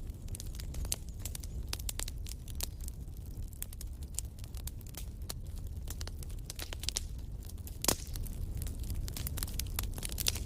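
Wood campfire crackling, with a rapid, irregular run of pops and snaps over a low steady rumble. One louder pop comes about eight seconds in.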